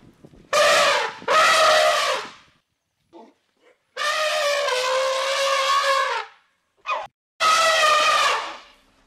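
An animal giving a series of drawn-out, pitched calls: two back to back near the start, a longer one of about two seconds in the middle, and another near the end, with a few short faint ones between.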